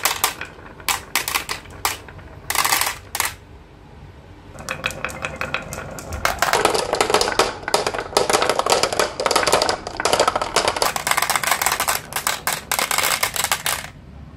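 Glass marbles rolling and clattering along a marble run, clacking against each other and the track. A few separate clacks in the first three seconds, then a dense, rapid clatter from about five seconds in that stops abruptly near the end.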